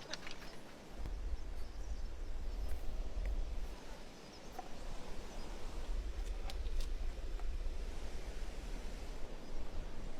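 Outdoor background noise: a steady low rumble with a faint hiss, and a few faint clicks.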